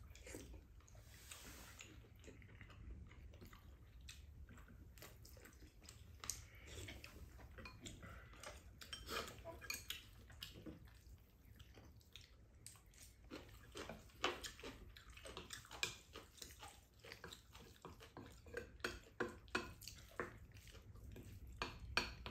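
Spoons and chopsticks lightly clinking and scraping against ceramic rice bowls while stirring and scooping rice, the clinks coming more often in the second half.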